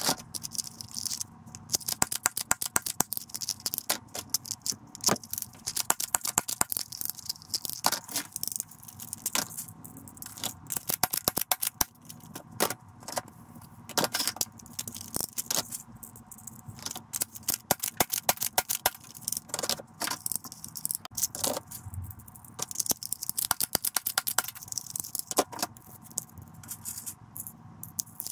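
Plastic toy guns clattering and knocking against each other as they are picked up and shifted around in a box: many sharp clicks, knocks and scrapes in quick irregular succession.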